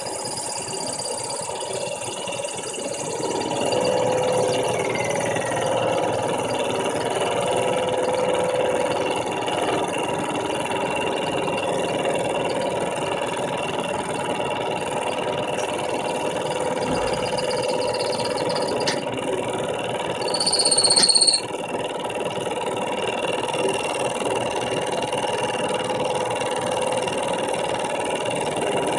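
Milling machine cutting aluminium plate with a large spinning cutter: a steady machining whine that grows louder about three and a half seconds in as the cut takes hold. About two-thirds of the way through comes a brief, loud, high-pitched screech from the cutter.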